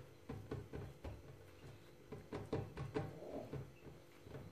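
Hands rolling and pressing bread dough on a floured board: soft, irregular thumps and taps, a few a second.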